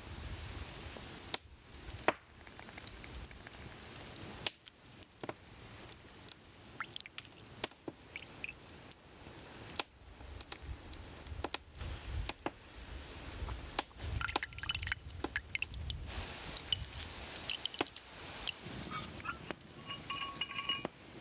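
Hand food preparation: scattered taps, knocks and clicks of tools and ingredients being handled, with small liquid sounds. Near the end comes a brief ringing clink of glass or metal.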